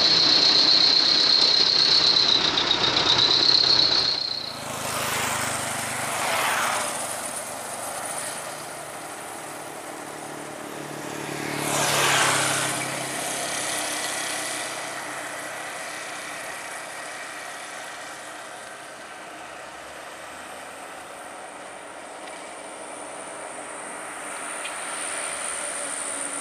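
Loaded diesel trucks, Mitsubishi Fuso Canters among them, pulling uphill and passing close by. The engine and road noise falls in pitch as each goes past, once about five seconds in and again, loudest, about twelve seconds in. A high wavering whine fills the first few seconds and then stops abruptly, and a steady high insect buzz comes in near the end.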